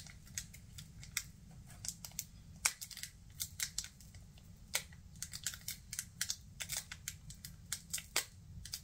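Foil Pokémon booster pack wrapper crinkling and crackling in small irregular clicks while it is being worked open; the pack is stubborn to open.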